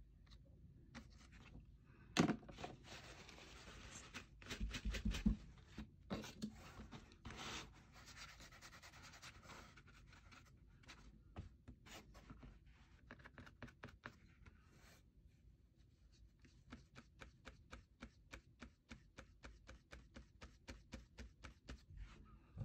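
Flat paintbrush rubbing and dabbing acrylic paint onto embossed cardstock: faint scratchy brush strokes, then in the second half a run of quick light taps about four a second as the bristles stipple the raised letters. A sharp click about two seconds in.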